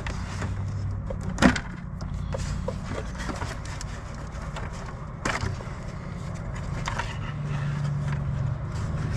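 Sharp clicks and knocks of heater-hose clips being worked loose, the loudest about a second and a half in and another about five seconds in. Under them runs a steady low rumble of passing road traffic that grows near the end.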